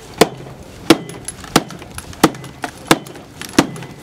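Axe biting into a log with short, choppy strokes, one sharp chop about every two-thirds of a second, six in all at a steady pace.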